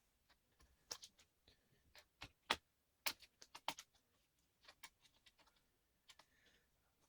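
Irregular small clicks and taps of hands and tools working on a Dell Latitude E5470 laptop's plastic and metal parts. The sharpest tap comes about two and a half seconds in, followed by a quick run of clicks.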